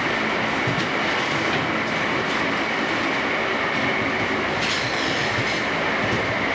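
Concrete line pump running during a pour: a steady, loud mechanical rumble and hiss with faint regular knocks.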